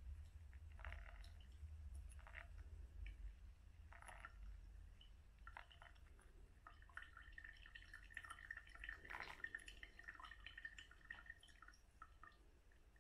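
Faint trickle of a thin stream of hot water poured from a gooseneck kettle onto wet coffee grounds in a paper pour-over filter, with small ticks of bubbles popping. The pour stops near the end.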